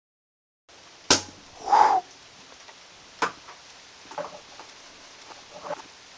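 A cork pops out of a glass wine bottle about a second in with a single sharp pop, blown out by the carbon dioxide built up from baking soda and vinegar. It is followed at once by a short pitched call, then a few fainter ticks and chirps.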